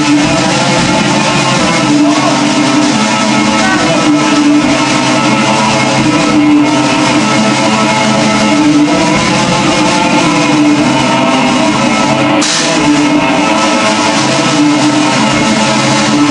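Black metal band recording: heavily distorted electric guitar riffing over a drum kit, loud and dense without a break.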